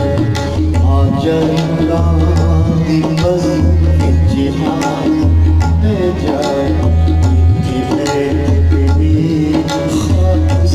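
Harmonium and tabla playing a ghazal accompaniment: the harmonium holds sustained reedy chords over a steady, evenly repeating tabla rhythm with deep bass strokes.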